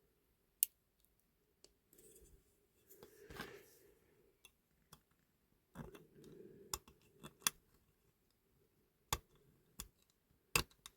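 Sharp, irregular metallic clicks and taps with brief faint scraping, from small hand tools working at a diecast toy car body to free a part that is nearly loose.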